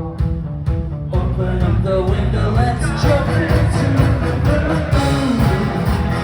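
Live rock band playing a song, with drums and bass under a melodic line.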